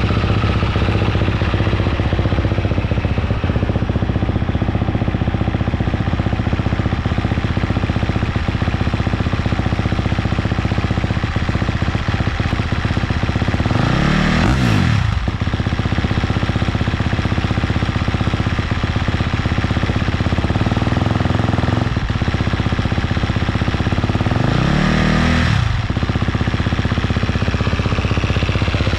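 2023 Husqvarna FC250's 250 cc single-cylinder four-stroke engine idling steadily through a Yoshimura RS-12 exhaust. The throttle is blipped twice, about halfway through and near the end, each time a quick rise and fall in revs.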